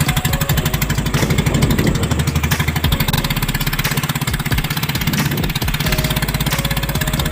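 Small boat engine running steadily with a rapid, even beat.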